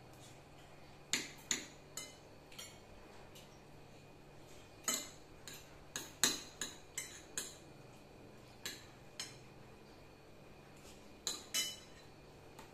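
Cutlery clinking against plates and dishes during a meal: short, irregular clinks, several close together around the middle.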